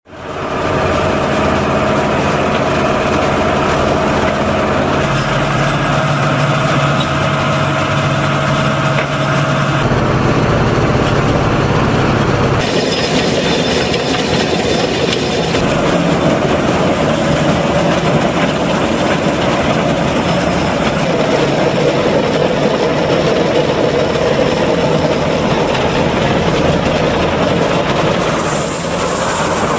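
An Agronic MR820 round baler-wrapper and its Fendt Farmer 311 tractor running, a steady mechanical clatter over the engine, while baling chopped corn silage. The sound changes abruptly several times, at about 5, 10, 13 and 28 seconds in.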